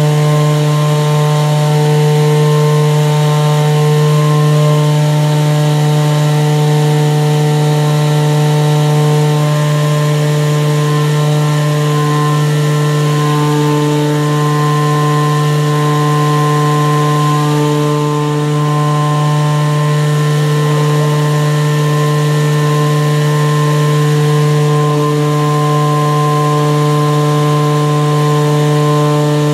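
Small rotary (Wankel) engine running steadily on a test stand: a loud, even buzz that holds a constant pitch.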